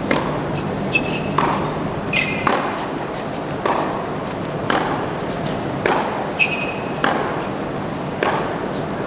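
Tennis balls struck by rackets in a hard-court practice rally: sharp hits and bounces about once a second, echoing in a large hall, with a few short high-pitched shoe squeaks on the court surface.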